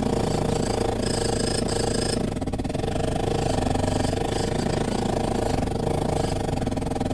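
Small geared DC motor of a miniature DIY tractor running with a steady, even whir, turning a rubber belt drive that powers a mini water pump.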